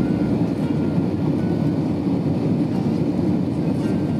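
Steady low rumble of cabin noise inside an Airbus A320-214 on landing approach: engine and airflow noise heard from a window seat behind the wing, even and unchanging.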